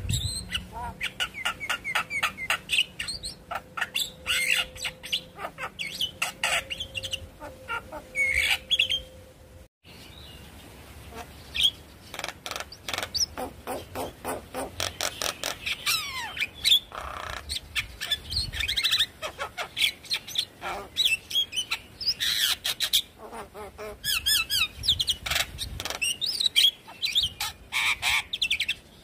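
Javan myna singing a fast, varied song of chattering clicks, short whistled glides and squawky notes, with a brief break about ten seconds in.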